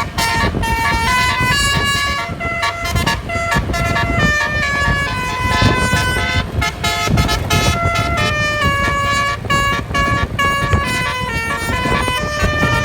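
Bus's Basuri multi-tone 'telolet' horn playing a tune, its notes stepping up and down every fraction of a second, really loud, over a low rumble.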